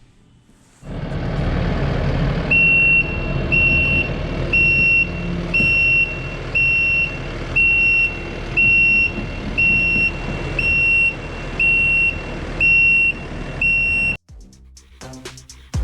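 Kubota SVL97-2 tracked skid steer running loudly on its diesel engine, with a backup alarm beeping about once a second, the sign that the machine is reversing. The sound cuts off abruptly near the end.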